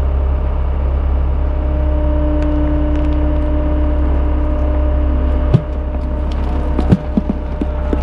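Road roller's engine running steadily as the steel drum rolls over gravel, with two sharp cracks about five and a half and seven seconds in, followed by smaller crackles, as pumpkins are crushed under the drum.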